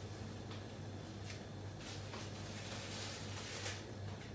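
Quiet kitchen room tone: a steady low hum under a faint hiss, with a few soft ticks, while a frying pan heats on a gas stove.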